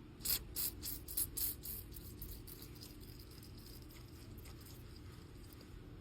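A quick, uneven run of about seven sharp mechanical clicks over a second and a half, then only a low steady hum.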